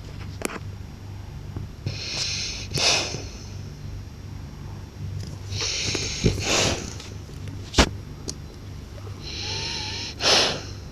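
French bulldog snoring: three breaths about four seconds apart, each a hissing draw that ends in a louder rasp. A sharp click comes a little before the third breath.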